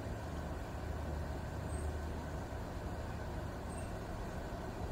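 Steady low mechanical rumble, like an engine running nearby, unchanging throughout, with faint short high blips about every two seconds.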